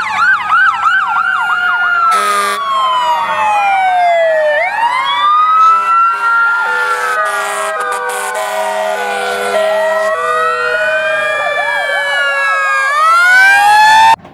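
Toy fire truck's electronic siren: several wailing tones glide up and down and overlap, with short stepped beeps in the middle, cutting off suddenly near the end.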